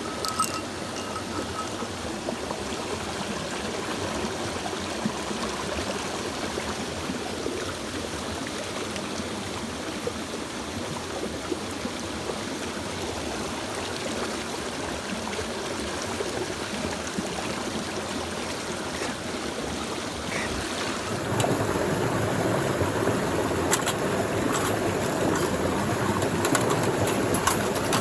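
Mountain stream water rushing steadily. About three-quarters of the way through, it suddenly becomes louder and fuller, and a few sharp clicks follow.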